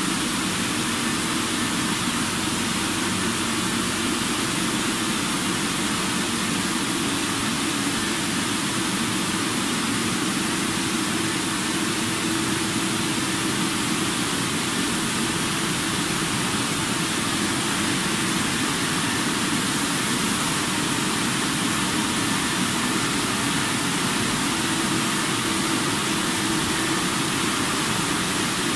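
Automatic rollover car wash machine running: a steady hiss of water spray and rotating brushes on a car, over a low, steady hum from the machine's motors.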